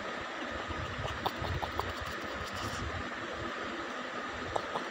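Outdoor ambient hiss with low, uneven wind buffeting on the microphone, and a few faint short ticks about a second in and again near the end.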